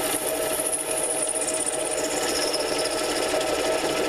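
7x10 mini-lathe running steadily at speed while a carbide bit takes a rough facing cut across a spinning Delrin workpiece. A high whine over the motor drops in pitch about a second and a half in.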